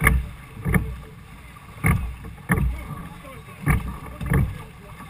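Six-oared Cornish pilot gig being rowed hard in choppy sea: the crew's oars knock together in their thole pins, two sharp knocks to each stroke, three strokes in a steady rhythm of about one every two seconds.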